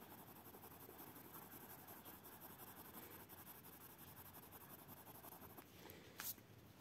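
Lyra Rembrandt Splender blender pencil rubbed back and forth over a layer of pink coloured pencil on paper: a faint, steady scratching that stops near the end, followed by a brief tap.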